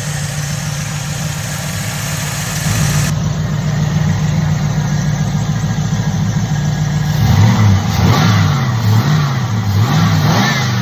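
Small-block Ford V8 idling steadily, then revved up and down several times from about seven seconds in. It is running with a newly installed MSD distributor, its ignition timing just adjusted.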